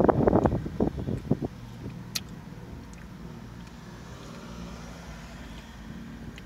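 Close-up chewing of crunchy salad with lettuce, a quick run of crisp crunches that dies away about a second and a half in. After that only a low steady background hum remains, with a single click about two seconds in.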